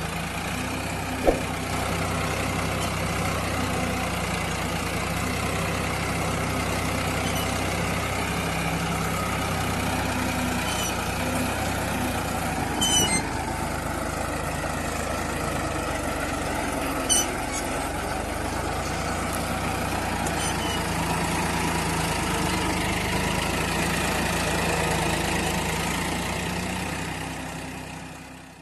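Farmtrac 60 tractor's three-cylinder diesel engine running steadily, with a few short sharp clicks over it; the sound fades out at the very end.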